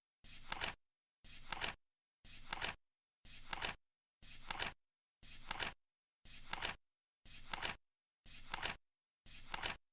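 Flip clock sound effect turning once a second, ten times: each turn is a short swish that swells and ends in a sharp double click, with dead silence between.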